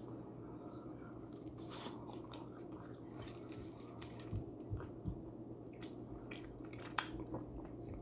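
A person quietly chewing a mouthful of Hot Pocket, with soft mouth clicks and a few small thuds about halfway through.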